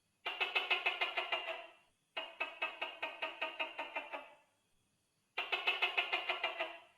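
Tokay gecko calling: three runs of rapid, evenly spaced clucking pulses, about seven a second, each lasting one to two seconds and fading away at the end.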